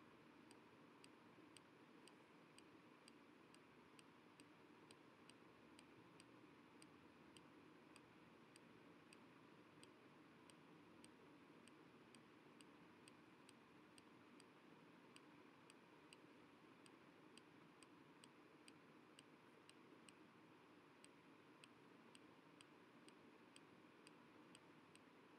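Near silence: faint steady hiss with faint, evenly spaced ticking, about two or three ticks a second.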